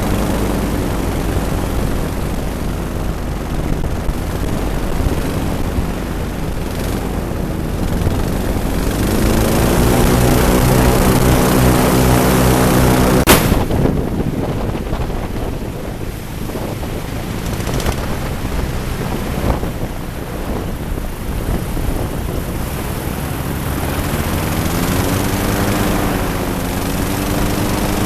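Twin-engine airboat's propeller engines running, with the engine note climbing and holding strongly for a few seconds before it drops away after a sharp click about 13 seconds in. It rises and wavers again near the end. Heavy wind noise buffets the microphone throughout.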